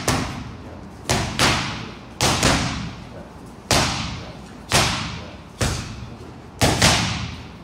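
Boxing gloves smacking into focus mitts: about nine sharp hits, some in quick one-two pairs, each ringing on briefly in an echoing room.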